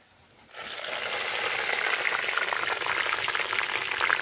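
Dried red chillies dropped into hot oil in a kadai, the oil starting to sizzle about half a second in and frying steadily with fine crackles.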